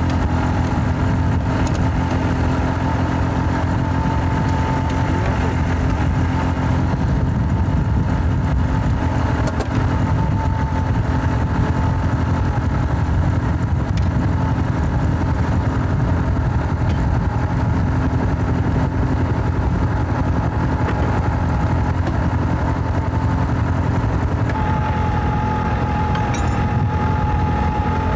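An engine running steadily: a loud, even low drone with a thin whine over it that grows more prominent near the end.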